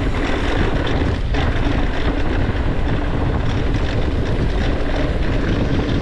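Wind rushing over a helmet-mounted action camera's microphone, with steady tyre and trail noise from a YT Decoy e-mountain bike riding over dirt.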